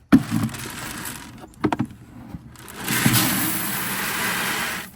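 Dry snacks poured from a bag into an emptied feed bowl: rustling and a couple of clicks, then a steady pouring hiss for about two seconds in the second half.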